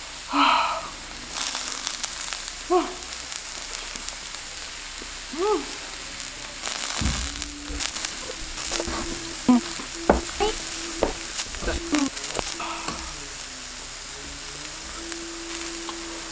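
Zucchini slices sizzling steadily on a hot griddle pan, with sharp clicks of chopsticks and chewing over it, and now and then a short hum from the eater.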